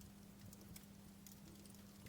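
Wood fire crackling faintly: scattered small snaps and pops over a steady low hum.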